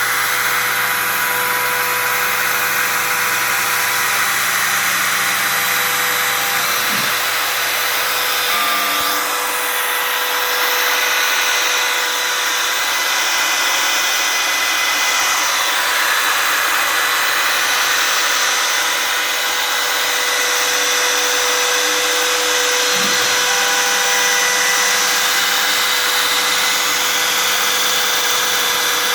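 Spindle of a homemade CNC router running steadily while it mills a 3 mm clear polystyrene sheet in a single pass: a constant whine with cutting hiss. A short rising tone comes twice, about seven and about twenty-three seconds in.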